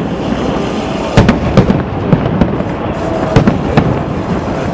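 Aerial fireworks shells bursting overhead: about six loud, sharp bangs at irregular intervals over a continuous rumble from the display.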